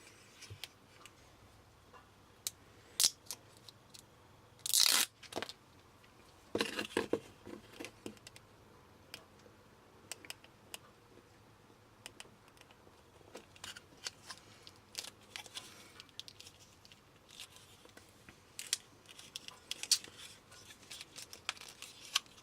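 Handling noise: scattered small clicks and taps, with a short harsh scraping or tearing noise about five seconds in and a brief bout of rustling a couple of seconds later.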